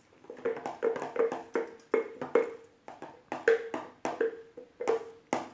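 Red glue and shaving foam slime mixture being stirred quickly in a bowl, making short clicking strokes several times a second.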